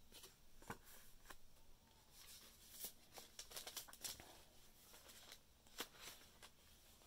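Faint rustling and crinkling of paper as the pages and cards of a handmade paper journal are handled and turned, with scattered soft clicks.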